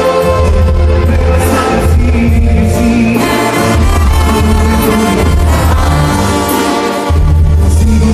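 Live banda music played loud: a tuba bass line pulsing under brass and percussion, with a singer's voice over it.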